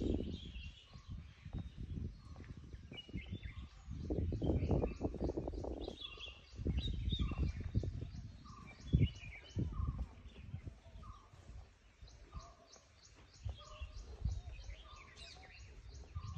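Birds chirping and calling, one of them repeating a short note about once every two-thirds of a second through the second half. Low rumbling noise on the microphone surges in several times, loudest around the middle.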